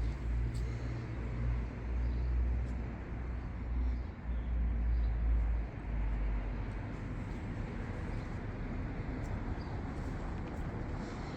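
Outdoor town street ambience with a low rumble that comes and goes over the first six seconds, then settles into a steadier background hum.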